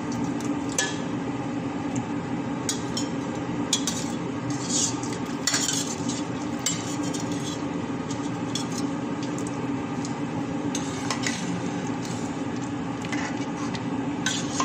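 A cooking spoon knocking and scraping against a metal pot at irregular moments while a brothy beef and vegetable stew is stirred, over a steady low hum.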